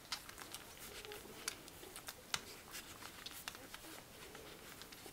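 Faint rustling and scattered sharp clicks from a litter of six-day-old English Springer Spaniel puppies squirming about in their bedding.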